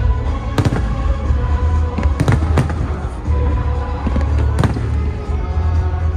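Fireworks bursting in sharp bangs: one about half a second in, a quick cluster of three around two seconds in, and another past four seconds, over music and a steady low rumble.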